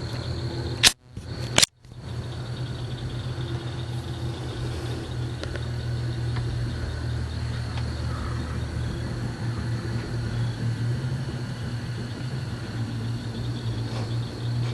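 Steady low mechanical hum, like an engine or motor running, under a constant high insect trill from crickets. Two sharp clicks, each with a brief drop-out, come about a second in.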